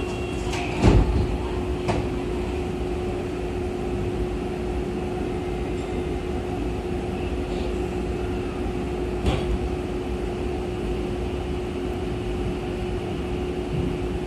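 Cabin sound of a Tobu 50050-series subway train moving off and running in the tunnel. A heavy thump comes about a second in and a click a second later. Then steady rumbling running noise follows, with a constant hum.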